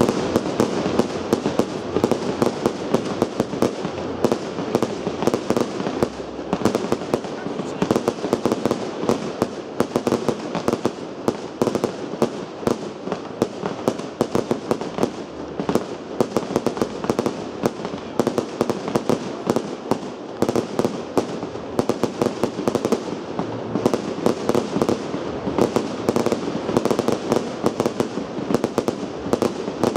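Fireworks barrage: an unbroken, rapid string of bangs and crackles, several a second, as shells burst in the air.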